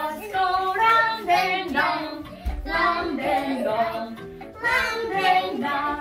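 An English children's action song: a child's voice singing over backing music.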